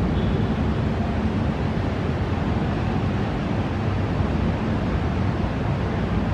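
Thunderstorm wind: a steady rushing noise, heaviest in the low end, buffeting the microphone.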